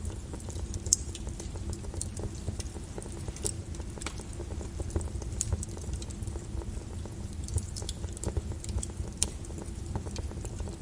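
Wood fire burning in a fireplace: a steady low rumble of flames with frequent irregular crackles and pops, one sharper pop about a second in.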